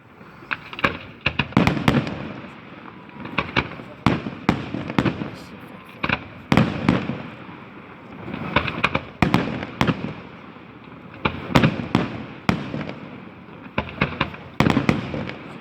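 Fireworks display: volleys of sharp bangs and crackles come about every two seconds, with a low rumble between them.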